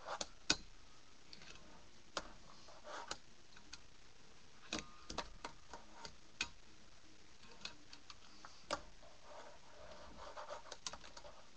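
A wooden fingerboard worked with the fingers on a small obstacle: scattered sharp clacks of the board popping and landing, with short rolling and scraping stretches in between.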